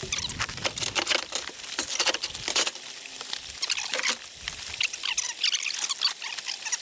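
Nylon tent-cot fabric and its carry bag rustling and scraping in quick, irregular crackles as the folded Kamp-Rite tent cot is forced into a tight-fitting case.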